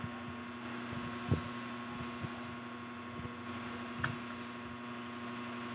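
Steady electrical hum with a few soft clicks and taps as fries and fried snacks are picked up and eaten.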